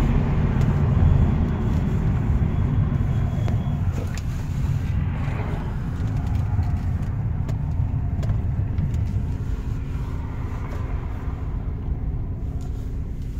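In-cabin sound of a 1986 Alfa Romeo Spider Veloce on the road, its 2-litre twin-cam four-cylinder running with a steady low rumble and wind noise. The sound eases off gradually as the car slows.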